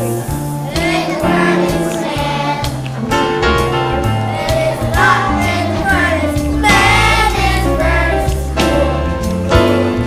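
Children's choir singing a song over instrumental accompaniment.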